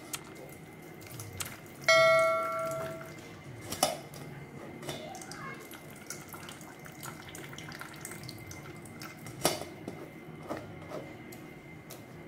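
A single bright bell-like ding, the chime of a subscribe-button animation, sounds about two seconds in and rings out for about a second. Around it come soft scattered taps and scrapes of a silicone spatula pressing puree through a stainless steel mesh strainer.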